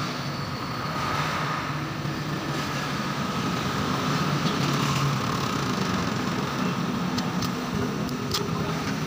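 Steady background hum, with a few short crackles between about seven and eight and a half seconds in as a stick-welding electrode touches the steel to strike a brief tack weld.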